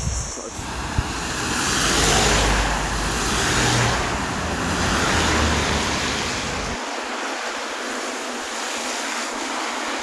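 Road traffic going by on wet roads: a steady hiss of tyres on the wet surface that swells and fades as vehicles pass, with wind rumbling on the microphone that stops about seven seconds in.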